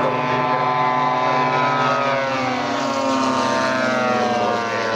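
Engines of several large radio-controlled WW2 warbird models flying together: overlapping propeller drones whose pitches slowly fall as the planes pass, with one model coming by low.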